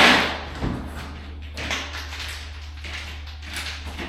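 Roll of flooring underlayment being unrolled and pushed across a concrete floor: a loud rustling swish at the start, then quieter rustling and scraping with a few light knocks.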